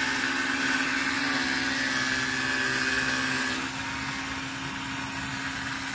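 Ryobi 18-volt One+ cordless pressure washer's electric pump running with a steady hum while it primes from a bucket, still working air out of the line. About three and a half seconds in it turns a little quieter and duller.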